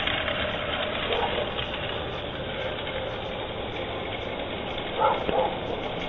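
Push reel lawn mower's blades whirring and clattering steadily as it cuts grass, with two short louder sounds about five seconds in.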